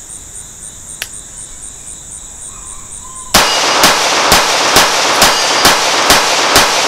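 Nighthawk Custom Fire Hawk .45 ACP 1911 pistol with a single-port compensator, fired in rapid succession: about eight shots at roughly two a second, starting a little over three seconds in.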